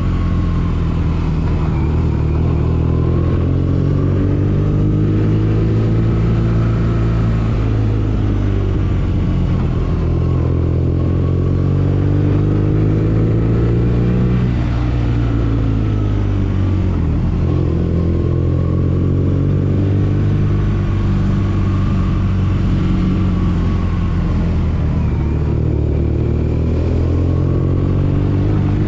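2014 BMW R nineT's air/oil-cooled boxer twin running on the move, its engine note rising and falling with the throttle, dropping off about halfway through and then picking up again.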